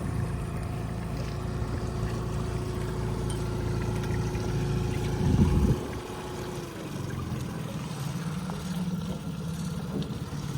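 Boat motor running steadily at trolling speed, its hum dropping and changing note about six and a half seconds in. A brief loud noise sounds about five and a half seconds in.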